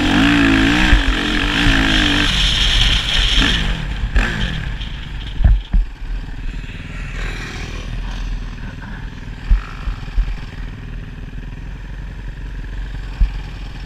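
Motocross motorcycle engine revving hard and loud for about four seconds, its pitch rising and falling with the throttle, then dropping away. Quieter engine noise remains after that, with a few sharp knocks and clatter.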